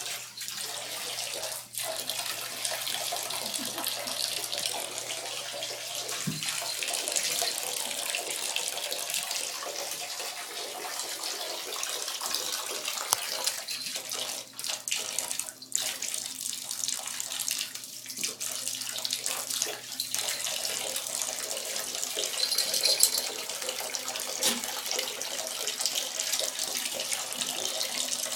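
Water running and splashing steadily, the flow briefly broken several times.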